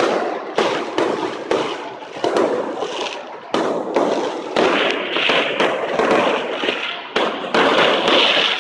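Aerial fireworks bursting one after another in a rapid, uneven series of loud bangs, each followed by crackling and hiss.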